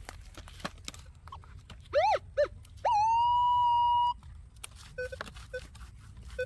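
Metal detector's audio tones as the search coil sweeps over a dug hole: two quick tones that rise and fall in pitch about two seconds in, then a steady high tone held for about a second, and a few short low beeps near the end. The detector is signalling a buried metal target.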